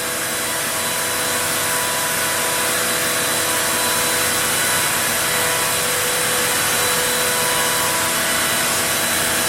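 OneFinity CNC machine's router spindle running steadily as it cuts wood: an even high whine over a loud, airy hiss that doesn't change.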